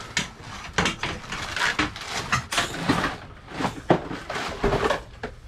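Hollow plastic toys knocking and clattering as they are picked up and shifted by hand, with a plastic tarp rustling between irregular knocks.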